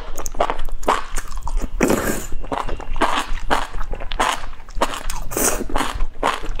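Close-up eating sounds of enoki mushrooms in broth: quick, repeated wet chewing, with a couple of longer slurps of the strands.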